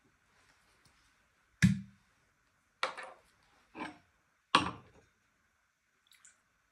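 Four sharp knocks over about three seconds, the first and last the loudest: a gin bottle's cork stopper being pulled and set down, and a stemmed coupe glass being put down on the bar top.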